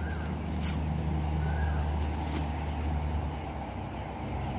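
Low, steady engine hum of a motor vehicle running close by, with a few faint clicks over it.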